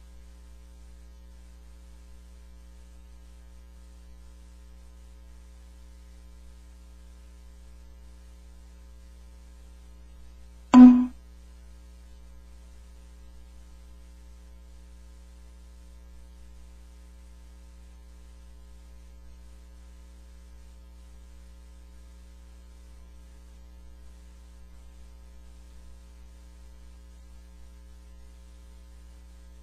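Steady electrical mains hum, with one short, loud thump about eleven seconds in.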